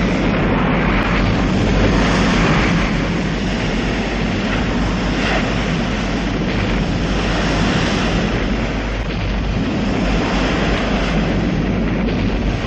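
Dense, continuous rumble of an artillery bombardment, with shell bursts running together so that no single blast stands out.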